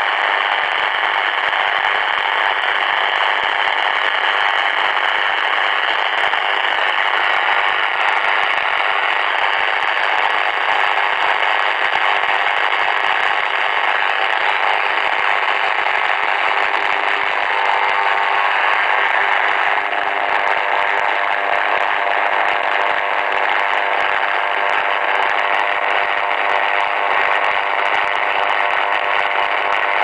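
Portable multiband radio's speaker giving out a steady rasping noise of interference instead of a station, which the uploader takes for jamming from a 5G base station. A few faint steady tones join in low down about two-thirds of the way through.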